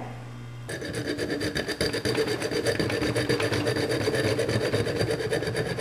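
A hand file rasping steadily against the steel slide-catch notch of a Glock 23 slide, starting about a second in. The notch has worn rounded and polished so the slide catch no longer holds, and it is being filed back toward a square 90-degree edge.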